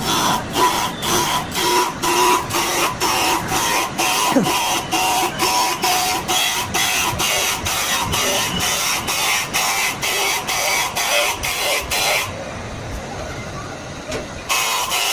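Metalworking machine running with a fast, even clatter of about three strokes a second over a steady whine; the clatter drops out for a couple of seconds near the end, then starts again.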